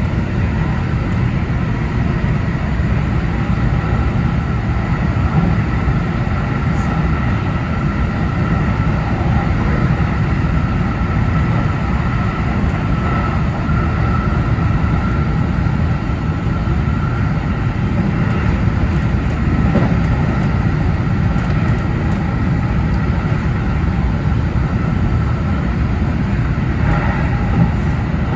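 Running noise of a JR Central 313 series electric train at speed, heard from inside the driver's cab: a steady rumble of wheels on rail with a faint steady whine over it.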